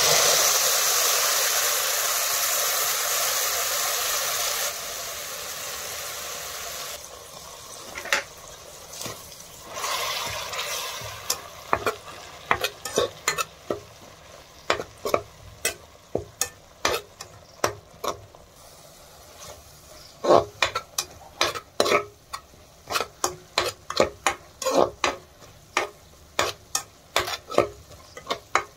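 A wet masala hits hot oil in a steel kadai: a loud sizzle starts at once, drops back twice and dies down over about seven seconds. After that a metal spoon stirs and scrapes against the pan in quick repeated strokes, about one to two a second, over lighter frying.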